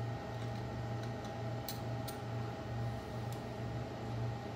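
A few light metallic clicks of small parts being handled on a LiFePO4 battery pack's connector plates and screws: two sharp ones close together a little before halfway, then a fainter one. A steady low hum sits underneath.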